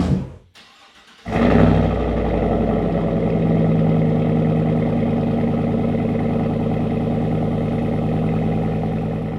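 Chevrolet Silverado V8 through an AWE cat-back exhaust with an H-pipe and quad tips: it comes in abruptly about a second in with a brief flare, then idles steadily with a deep tone. A short whoosh effect is heard at the very start.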